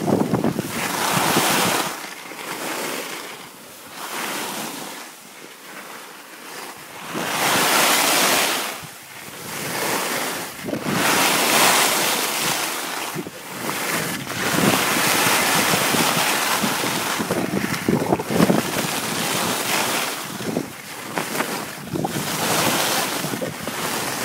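Wind rushing over a phone microphone and skis hissing over the snow during a downhill ski run, swelling and fading every few seconds.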